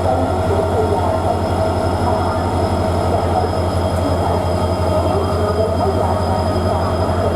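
EMD WDP4B diesel locomotive's 16-cylinder two-stroke engine running with a steady, fast low throb and a steady tone above it.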